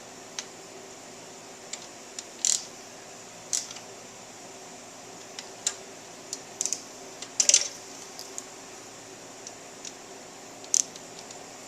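Hand tools clicking and clinking on metal as bolts are tightened. The clicks are sharp, scattered and irregular, with short clusters about two and a half and seven and a half seconds in, over a steady low hum.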